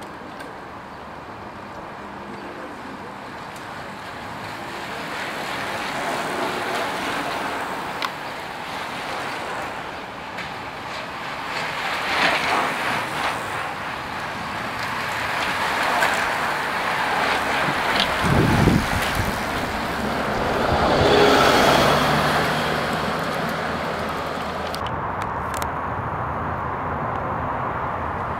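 Roadside passing noise as a bunch of racing cyclists goes by, mixed with motor-vehicle noise. It swells and fades several times, with a low rumble a little past the middle and the loudest swell soon after.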